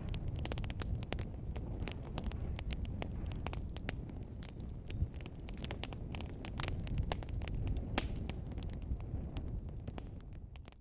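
Wood fire burning in a fireplace: a steady low rumble of flames with many sharp, irregular crackles and pops, fading out near the end.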